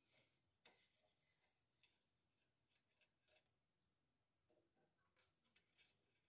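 Near silence, with a few faint clicks and ticks of multimeter test leads and probes being handled and moved.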